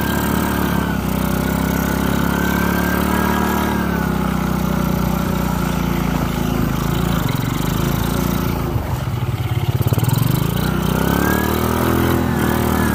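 Motorcycle engine running under load on a muddy track, its pitch rising and falling as the throttle is worked. It sags low about two-thirds of the way through, then climbs again near the end.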